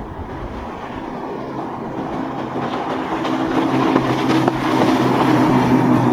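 Motorboat engines drone over a rushing wash, growing steadily louder as the boat approaches, with a steady engine tone coming through about halfway in.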